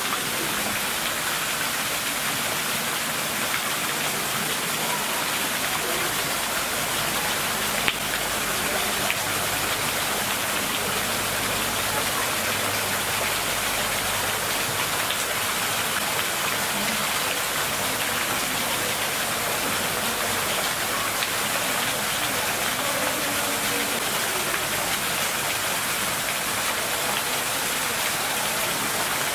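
Steady, even hiss of falling water, unbroken throughout.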